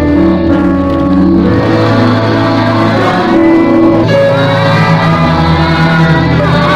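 Music: held chords over a steady bass, the notes changing every second or so.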